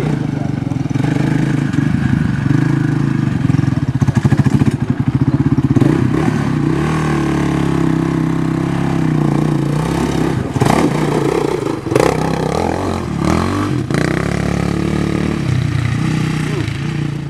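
Sport quad (ATV) engine revving under load as it climbs a rutted dirt trail, its pitch rising and falling with the throttle. There is a rapid pulsing stretch about four seconds in, and a few sharp knocks near the end.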